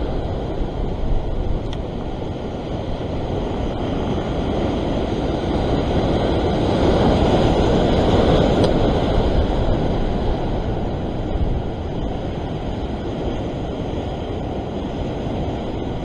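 Ocean swell surging and breaking against a rock ledge: a continuous wash of surf that builds louder in the middle and eases off near the end.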